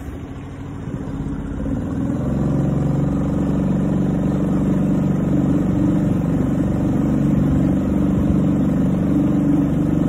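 Small gasoline outboard motor on a canoe running under way, getting louder over the first two seconds as it picks up speed, then holding steady.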